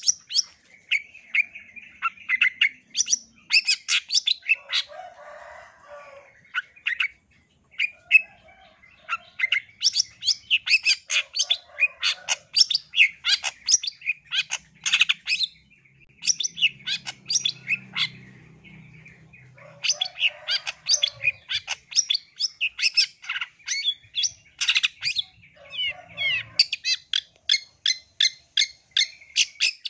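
Long-tailed shrike (cendet) in full song: rapid runs of sharp, high chirps and scratchy notes, coming in bursts with short pauses, the longest pause about halfway through.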